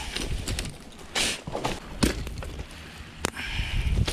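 River stones knocking and clacking as they are handled and set down on pebbles to build a stone hearth, with gravel crunching and a few sharp stone-on-stone knocks, the sharpest about three seconds in.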